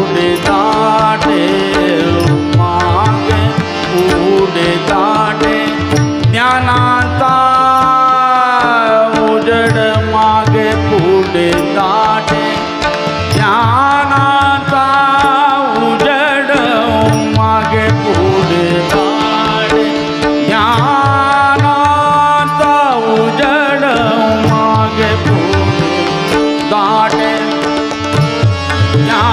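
A male vocalist singing a Marathi abhang (devotional song) in a classical style, with long held notes that slide and bend, over tabla playing a steady rhythm and a sustained drone.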